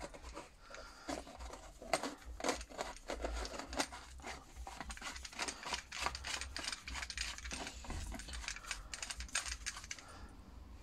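Makita grease gun attachment handled in the hands: a quick irregular run of small clicks and light metal clinks as its head and barrel are turned and fitted together.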